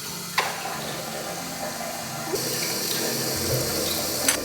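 Water running steadily from a tap, a hiss that brightens about two seconds in as the flow changes, with a sharp knock soon after the start and another near the end.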